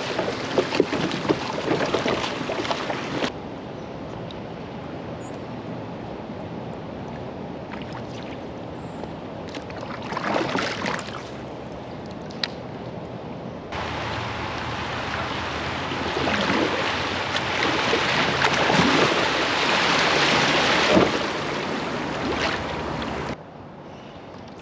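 Creek water rushing and splashing around a kayak on the move, with a few louder swishes; the sound changes abruptly at several cuts.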